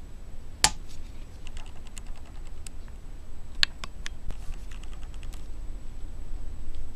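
Scattered light clicks and taps, two sharper ones about a second in and just past the halfway point, as a wobbly valve is pushed and rocked in its worn valve guide in a removed cylinder head. A steady low hum runs underneath.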